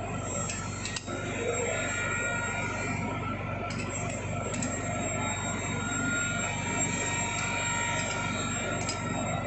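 Steady mechanical hum of workshop machinery, with a few faint metallic clicks.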